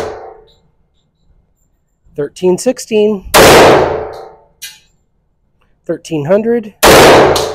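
Two 10mm pistol shots from a 5-inch-barrel Sig Sauer, about three and a half seconds apart, each very loud and ringing out for about a second in the indoor range bay.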